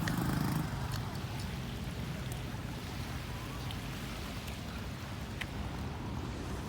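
Steady low outdoor background rumble with a few faint clicks.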